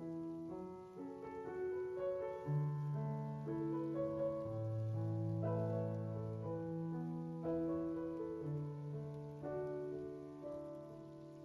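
Soft background piano music: slow, held notes and chords, a new one struck about once a second.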